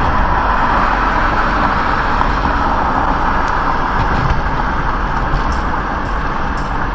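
Steady road and tyre noise with engine hum inside a moving car's cabin, as heard by a windshield dash cam while a 2011 Ford Edge drives along a town street.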